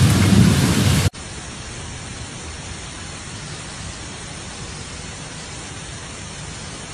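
Heavy rain, a dense steady hiss; about a second in it cuts abruptly to a quieter, even hiss of rain.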